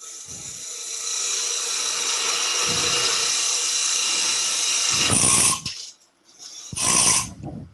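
Wood lathe turning a pepper grinder blank mounted between centers while a gouge cuts the wood, a steady hissing cut that swells near five seconds and stops. A second short cut follows about a second later.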